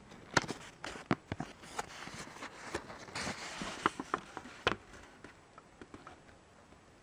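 A folded paper instruction sheet being unfolded and handled: a run of crisp crackles and rustles that settles down after about five seconds.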